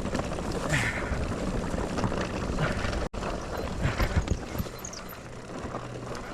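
Electric mountain bike rattling and knocking as it rolls slowly down a rutted dry dirt trail, with wind rushing on the microphone.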